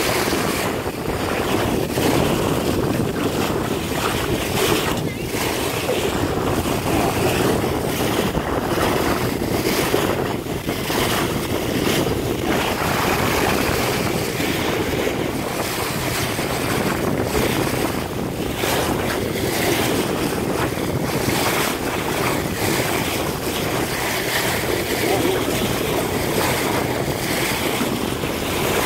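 Wind buffeting the microphone over the steady rush and splash of water along a moving boat's hull and bow wave.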